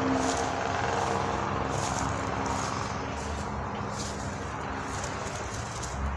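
A passing motor's steady hum fades out over about the first second, leaving a steady wash of distant traffic noise.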